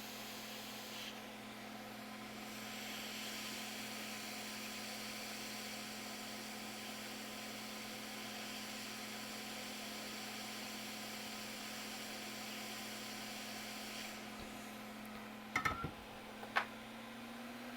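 Steady hiss and hum of bench equipment running during board-level soldering, with a few short sharp clicks, likely tools on the board, near the end.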